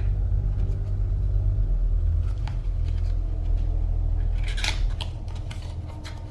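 Light rustling and clicking of a cardboard tarot deck box and its cards being handled, with one louder scrape about four and a half seconds in, over a low steady rumble that fades toward the end.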